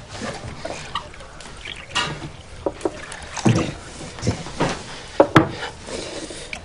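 Brandy trickling from the tap of a small wooden cask into a glass, among light clinks and knocks. Two sharp knocks close together near the end.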